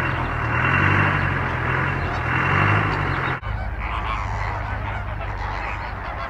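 A large flamingo flock calling: a dense, goose-like honking chorus over a steady low rumble. The sound breaks off for an instant and changes about three and a half seconds in.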